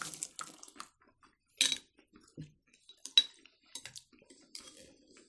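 Glass tableware clinking: a utensil against a glass bowl and fingers picking red-skinned peanuts from a small glass dish. Scattered short clinks and clatters with quiet gaps between them. The loudest comes about a second and a half in and a sharp one about three seconds in.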